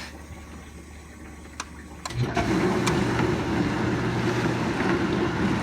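Whirlpool dishwasher's wash pump motor starting up after a couple of clicks, then running with a steady loud hum as the fill ends and the wash begins.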